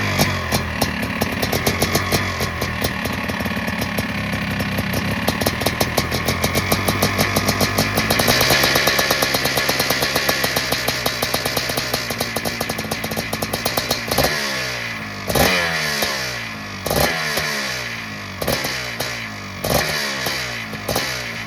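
1986 Yamaha YZ490's two-stroke single-cylinder engine running after a rebuild. Its revs rise and hold about eight seconds in, then from about fourteen seconds the throttle is blipped sharply several times, the revs falling back after each blip.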